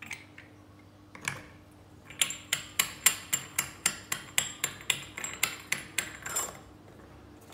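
Brass screw-type sev press being cranked by its handle: a regular metallic clicking, about three to four clicks a second, after two single knocks as the lid is fitted.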